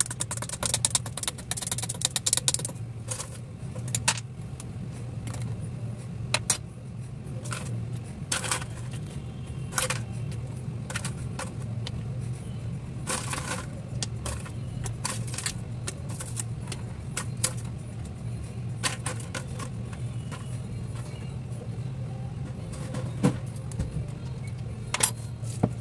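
Metal spoon clinking and scraping against a tall drinking glass as mint leaves are muddled, ice cubes dropped in and the drink stirred: irregular sharp clinks throughout, most rapid in the first couple of seconds, over a steady low hum.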